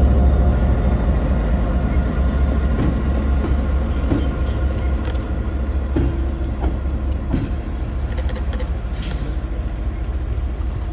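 Taiwan Railway diesel locomotive running with a heavy low engine rumble that slowly fades. A short hiss of released air comes about nine seconds in.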